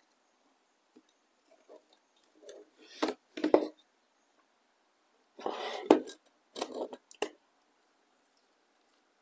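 Tableware being handled while eating: a glass jar and plates moved and set down on the table, giving short knocks and clinks in three clusters, about three, five and a half and seven seconds in.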